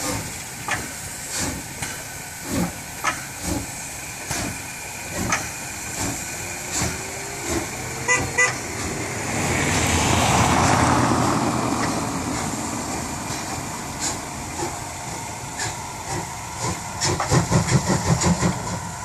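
Steam locomotive 03 1010, a DR class 03.10 three-cylinder Pacific, pulling away from a station with regular exhaust chuffs from its chimney. A brief toot comes about 8 seconds in. A loud rush of steam hiss swells and fades over the next few seconds, and a quick run of chuffs comes near the end.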